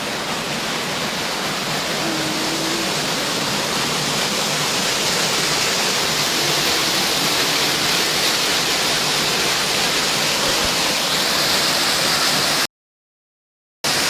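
Jungle waterfall rushing in a steady roar of falling water. It cuts out completely for about a second near the end.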